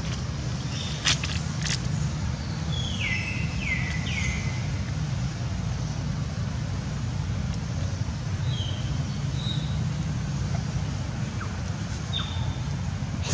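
Steady low outdoor rumble, with two sharp clicks about a second in. A bird gives three quick falling whistles a few seconds in and a few shorter high chirps later.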